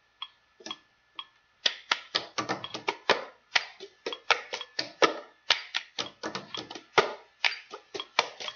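A run of sharp, irregular clicks and taps, a few at first and then several a second from about a second and a half in, over a faint steady tone.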